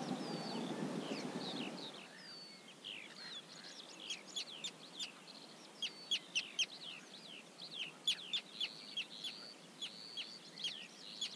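Small birds chirping and calling, many quick high notes and short sweeping whistles that grow denser as it goes on. A soft low rush is heard for the first two seconds, then fades away.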